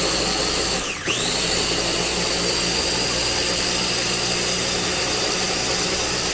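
Blender motor running to puree soup into baby food, with a steady high whine; about a second in the motor briefly slows and spins back up.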